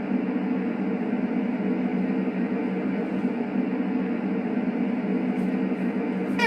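A steady, unchanging drone of continuous noise with a low hum in it, strongest in the low-middle range.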